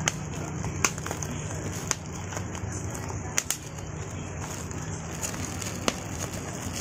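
Bubble wrap being popped between fingers: about half a dozen sharp single pops at irregular intervals, two of them in quick succession about halfway through, over a steady low hum.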